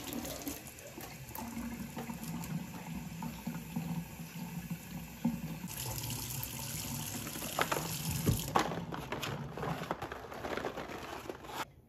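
Kitchen faucet running into a stainless-steel sink, the stream splashing over a hand being rinsed and then falling straight onto the steel. A few clicks and knocks come partway through, and the water cuts off just before the end.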